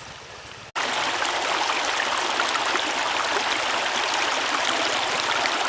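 Shallow stream water running over and around a low wall of stones, a steady rush that starts abruptly just under a second in.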